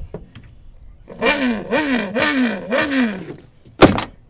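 A man imitating a rally car engine with his mouth: about five quick rising-and-falling revs in a row, like an engine climbing through the gears. Near the end comes a single sharp, loud pop.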